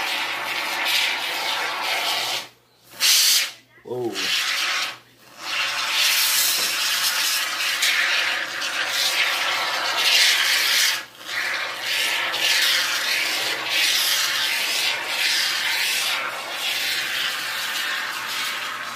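An aerosol can of Great Stuff expanding foam hissing as foam is sprayed out through its straw nozzle, in long spurts broken by a few short pauses.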